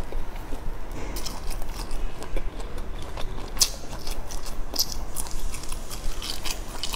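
Close-miked eating of seasoned skewered food: chewing and biting with many small, sharp wet mouth clicks and smacks, starting about a second in and coming thicker in the second half.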